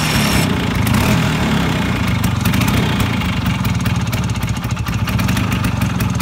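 Classic Vespa scooter's two-stroke single-cylinder engine running steadily with a rapid even pulse.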